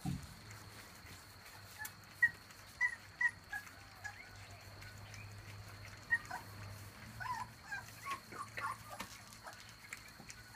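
Litter of 24-day-old puppies whimpering and yipping in short, high squeaks while crowding a feeding dish, with a few light clicks near the end.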